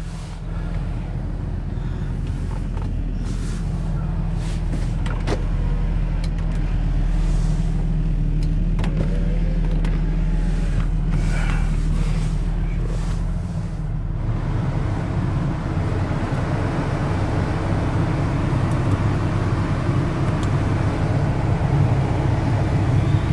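Toyota Supra's twin-turbo 2JZ-GTE straight-six idling steadily, heard from inside the cabin, with a few light handling clicks. About fourteen seconds in, a broader, louder hiss joins the idle.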